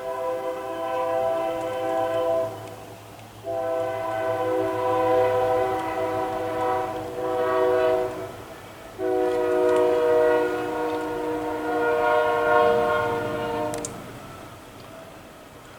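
Multi-chime air horn of a GE Dash 9-44CW freight locomotive blowing the grade-crossing signal: two long blasts, a short one, then a final long blast. A low rumble of the approaching train runs underneath.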